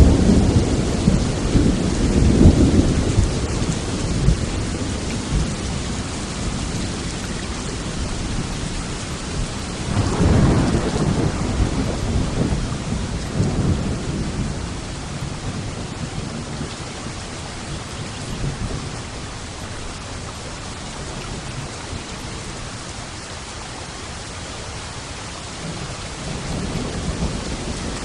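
Steady heavy rain with rolling thunder: a deep rumble dying away over the first few seconds, another about ten seconds in, and a fainter one near the end.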